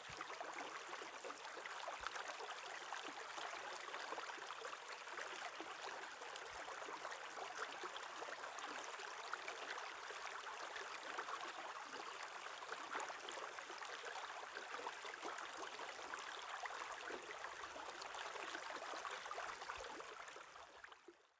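Shallow stream water running close up under the edge of shelf ice: a steady fine rush of flowing water that fades out over the last second or so.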